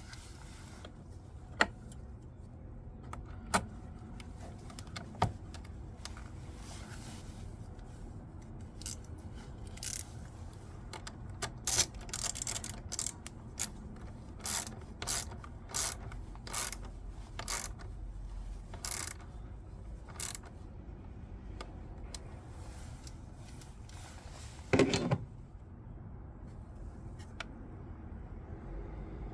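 A socket ratchet clicking in short runs of strokes, with sharp metal clicks and a loud knock near the end, as battery fittings are worked on.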